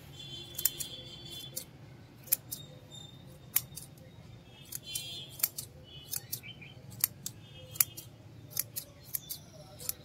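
Small hand scissors snipping plant stems and leaves, with about twenty sharp, irregular snips as a plant is trimmed into shape.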